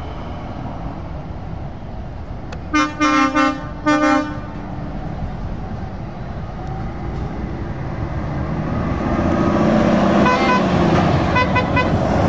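Truck air horn sounding in a quick run of short, loud blasts about three seconds in. Later, the engines of approaching heavy trucks build up, with further short horn toots near the end.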